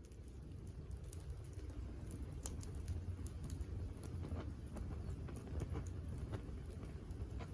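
Wood fire burning, with a steady low rumble and frequent sharp crackles and pops of burning wood.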